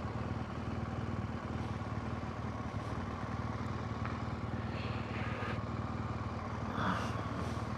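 BMW motorcycle engine running steadily under the rider, a low even drone with light road and wind noise.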